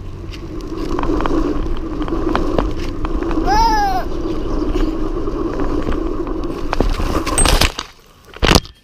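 BMX tyres rolling fast over a tarmac pump track, with wind rushing over the camera mic and small rattles and clicks from the bike. About halfway there is a short call that rises and falls. Near the end come two loud bursts of knocking and rustling as the camera is jostled, and then the sound drops away.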